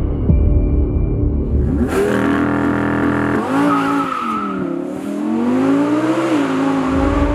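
Audi R8 V10 Performance's 5.2-litre naturally aspirated V10 is held at steady high revs for about a second and a half, then the car launches hard and pulls away. The engine note dips and climbs again as it shifts up through the gears. Background music plays before the engine comes in.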